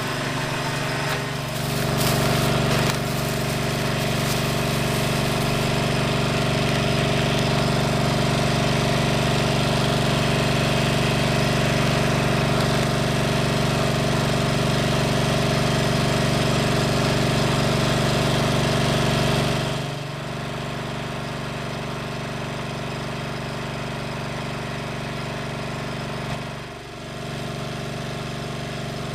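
A small engine running steadily at constant speed, a continuous even hum; about two-thirds of the way through it becomes quieter and duller.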